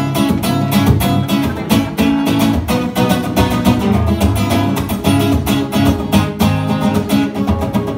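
Acoustic guitar strummed in a steady rhythm, an instrumental break between the song's sung verses.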